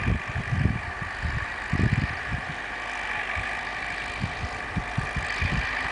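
Tractor with a snow plough running steadily as it approaches, with wind buffeting the microphone in irregular low rumbles.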